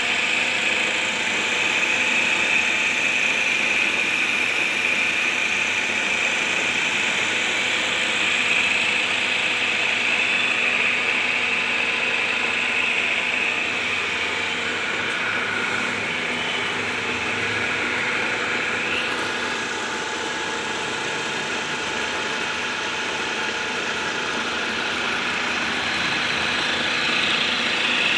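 Wood lathe running steadily, motor humming with a steady high whine as the turned wooden spindle spins; it eases slightly past the middle.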